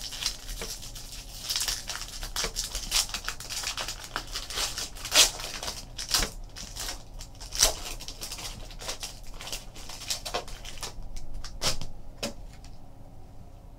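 Foil wrapper of a Panini Limited hockey card pack crinkling and tearing as it is unwrapped by hand, a dense string of sharp crackles that thins out near the end to a few clicks as the cards are handled.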